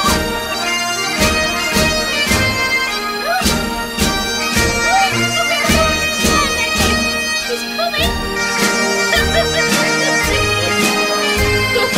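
Bagpipe music: steady drones under a chanter melody with quick grace-note flicks, over a regular drum beat of about one stroke a second.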